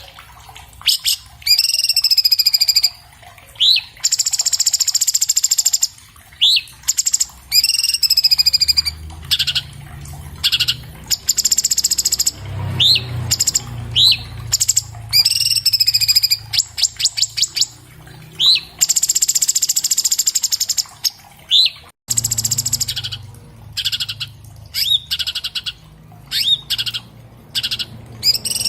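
Orange-bellied leafbird (cucak cungkok) singing a fast, varied song with hardly a pause: harsh buzzy phrases alternate with sharp rising whistled notes and quick rapid-fire trills of repeated notes.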